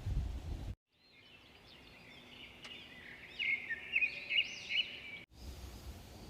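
A songbird singing a run of quick chirps and looping, warbled notes, loudest toward the middle. It starts and stops abruptly about a second in and about five seconds in. Low rumble comes before and after it.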